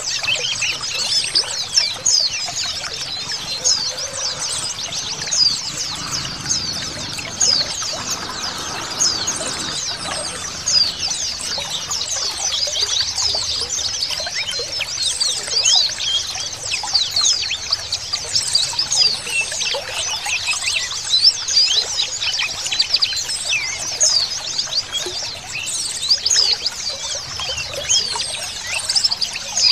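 Many white-eyes (pleci) chirping and twittering together in a dense, unbroken chorus of quick, high, overlapping chirps.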